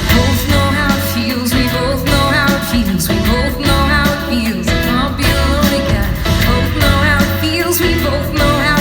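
Live band playing a pop-rock song at full volume: drums, bass and guitar, with a wavering melodic line over the top.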